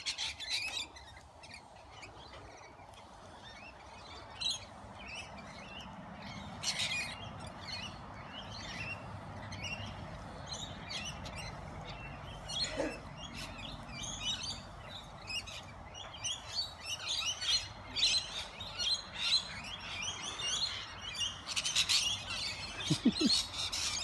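A flock of lorikeets and other parrots calling: many short, shrill chirps and chatter that grow busier toward the end.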